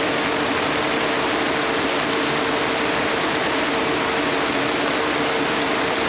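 Heavy rain pouring down in a steady, even rush, with a faint steady hum beneath it.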